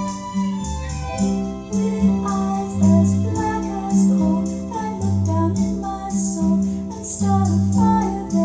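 Recorded song played back through home-built four-way hi-fi loudspeakers. A bass line repeats about once a second under steady cymbal ticks and a melody line.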